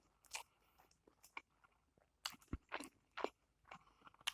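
Close-miked chewing of food, with faint irregular crunches and small mouth clicks.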